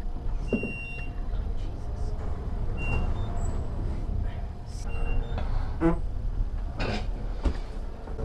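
Steady low rumble of an elevator car running, with a few short squeaky sounds: one falling in pitch about half a second in, and a wavering one near seven seconds.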